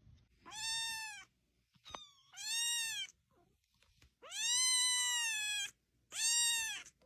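A young kitten meowing four times in high, thin calls, each rising and then falling in pitch. The third call is the longest, about a second and a half.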